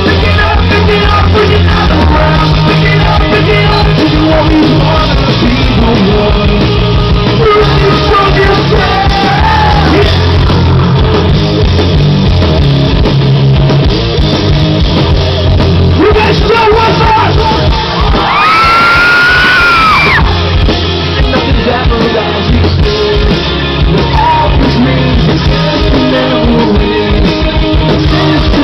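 Loud rock music with singing, dense and continuous, with a high held vocal note about two-thirds of the way through.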